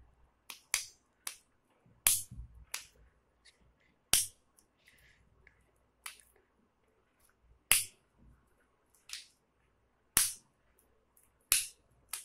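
Homemade pop-it toy, a plastic bubble cut from a juice bottle and covered with paper and sticky tape, being pressed by the thumb. It gives a dozen or so sharp pops and clicks at irregular intervals, about a second apart.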